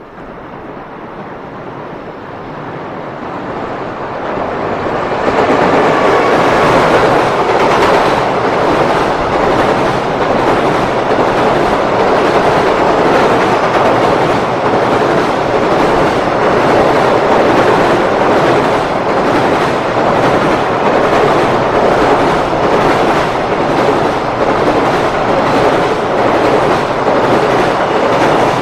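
JR Freight EF210 electric locomotive and its long container freight train running over a steel girder railway bridge. The sound grows over the first five seconds as the train approaches, then holds steady and loud as the container wagons roll past.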